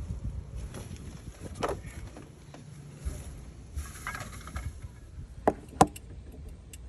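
Knocks and scraping from work in a cramped crawl space under a house, with two sharp knocks close together near the end.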